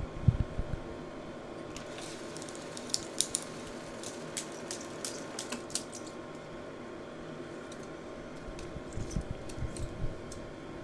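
Small clicks and taps of hands working the film path and controls of a Silma 250S Super 8 projector while threading the film, with a few dull knocks just after the start and again near the end.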